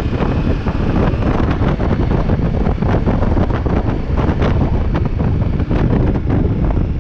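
Heavy wind buffeting on the microphone of a riding motorcycle, with the bike's engine running underneath as it picks up speed.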